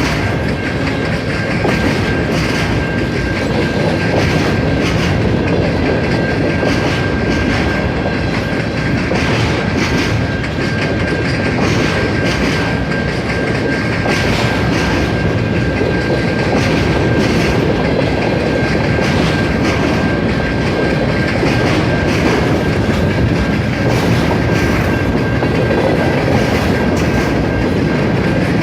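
CN freight train cars rolling past, their wheels clicking rhythmically over rail joints, with a steady rumble and a thin, steady high-pitched ring above it.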